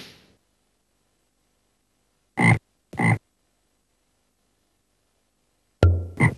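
Fermentation airlock bubbling as gas pushes through its water: short blurps, two about half a second apart near the middle, then another pair near the end.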